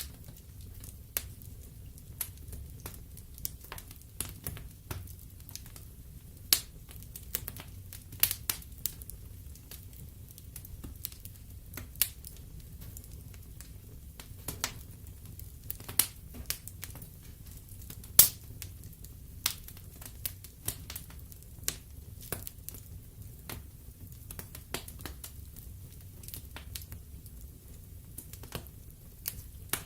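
Wood fire burning in a fireplace: logs crackling with irregular sharp pops, a few louder ones, over a low steady rumble of the flames.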